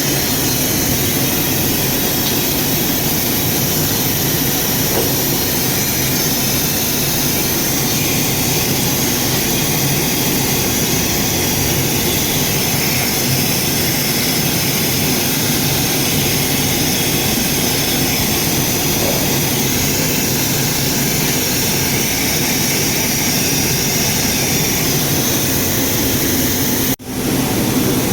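Steady, loud mechanical drone with a brief cut-out near the end.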